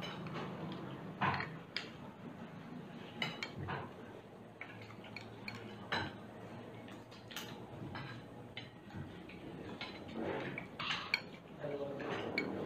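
Metal spoons and forks clinking and scraping against dinner plates as people eat: a scatter of irregular short clinks, a few of them sharper than the rest.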